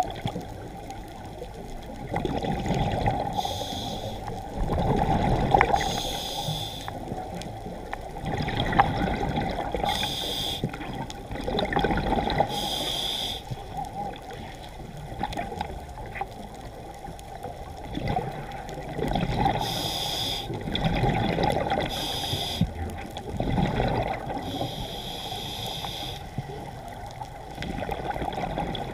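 Scuba diver breathing through a regulator underwater: a short hiss with each inhale, every two to three seconds, and exhaust bubbles gurgling between.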